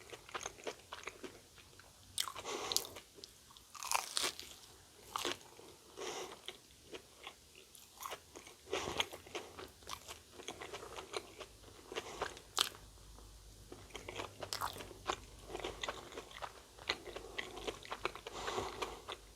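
A person biting and chewing a Korean corn dog with a fried batter crust: irregular crisp crunches and chewing sounds that go on at length, since the corn dog takes a long time to chew.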